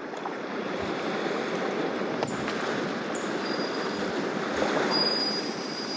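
Steady wash of sea waves breaking on a shore.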